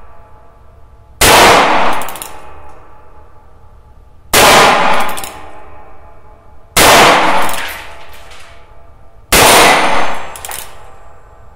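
Four shots from a .22 LR 1873 Single Action Army–style revolver, fired single-action about every two and a half seconds, each with a ringing tail about a second long.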